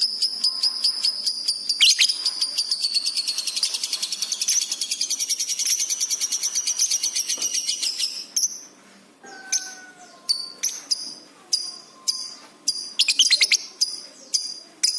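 Lovebird singing in full voice: a long, rapid, high-pitched chattering trill for about eight seconds, then a run of separate sharp chirps about twice a second.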